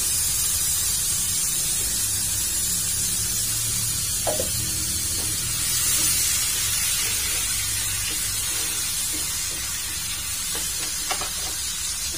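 Blended chili sambal paste frying in hot oil in a wok: a steady sizzling hiss, with a couple of faint knocks.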